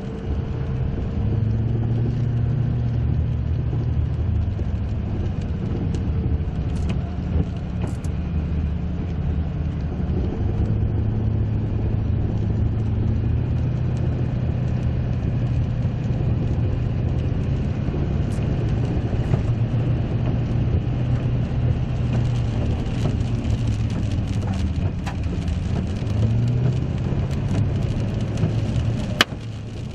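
Car driving on a dirt road, heard from inside the cabin: the engine runs steadily with its pitch drifting up and down, over tyre and road noise, with a few sharp ticks. It quietens near the end.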